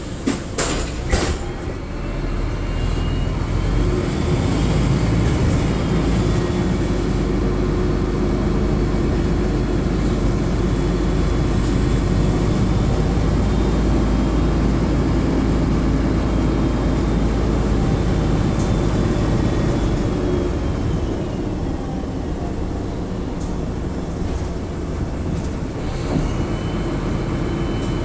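DAF DB250 East Lancs Myllennium double-decker bus heard from inside the saloon while under way: a few rattles and knocks in the first second, then the engine drone builds and holds steady. A high whine climbs in pitch as the bus gathers speed, and both ease off after about twenty seconds, with the whine climbing again near the end.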